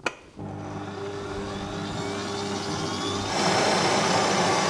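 A click, then a stand mixer's electric motor starting and running steadily as its beater mixes the dissolved gelatine mixture into beaten cream cheese. About three seconds in it steps up to a louder, rougher sound.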